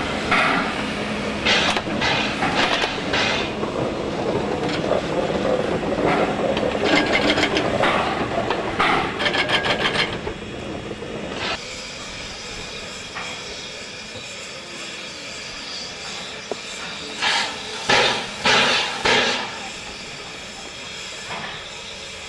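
A steam locomotive's tender and wagon rolling slowly past with wheel and rail clatter and a steady hum. About eleven seconds in the sound drops to a quiet steam hiss from a WAGR W-class steam locomotive, which gives four slow exhaust chuffs near the end.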